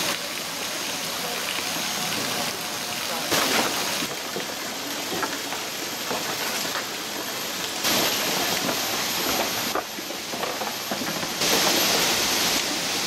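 Stream rushing over boulders: a steady hiss of running water that changes abruptly in loudness several times.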